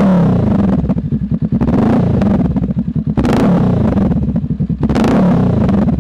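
2021 Honda Rebel 500's 471 cc parallel-twin engine breathing through an aftermarket Vance & Hines exhaust, revved in about four quick throttle blips, the pitch falling back toward idle after each. Heard close to the exhaust.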